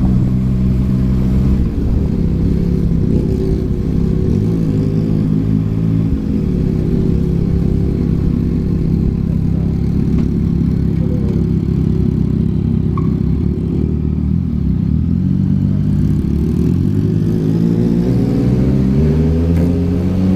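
Yamaha MT-09's 890 cc inline-three engine through a Yoshimura R11 exhaust, running under way at fairly steady revs, then rising as it accelerates over the last few seconds.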